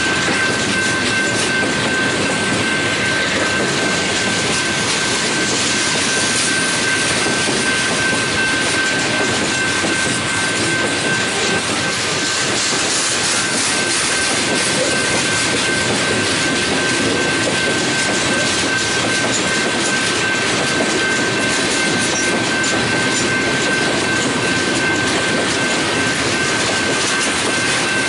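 Freight train of coil cars loaded with steel coils rolling steadily past: a continuous rolling rumble and rattle of the cars' wheels on the rails, with a thin steady high whine over it.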